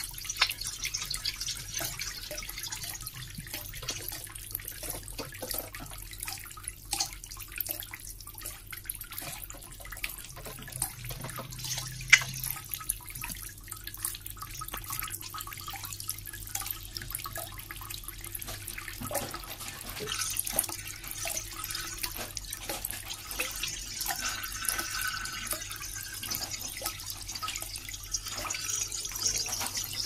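Running water splashing steadily, with many irregular drips and plinks and one sharper plink about twelve seconds in, over a faint steady low hum.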